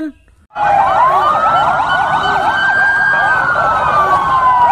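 Several ambulance sirens sounding at once, starting about half a second in: overlapping quick up-and-down yelps and one long wail that rises slowly and then falls.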